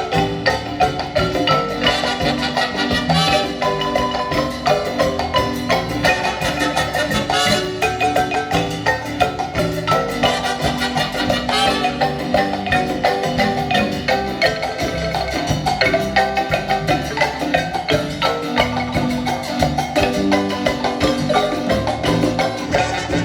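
Marimba playing a lively piece: quick, dense mallet notes over a low, pulsing bass line, without a break.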